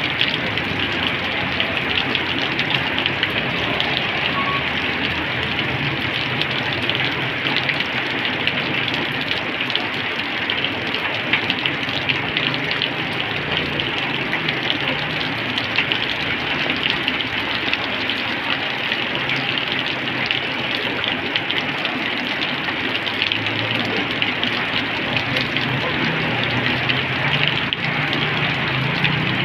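Heavy rain falling on a wet asphalt road: a dense, steady hiss full of close, fine drop impacts. In the last few seconds a motorbike engine hums past on the wet road.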